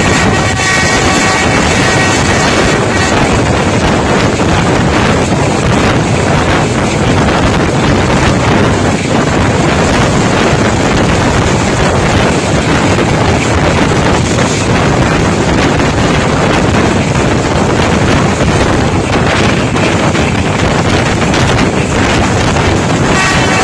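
A passenger train runs at speed, heard from an open window: a loud, steady rush of wind and running noise with scattered faint clicks from the wheels. A horn, most likely the ZCU-30 diesel locomotive's, sounds a steady chord for about three seconds at the start and again near the end.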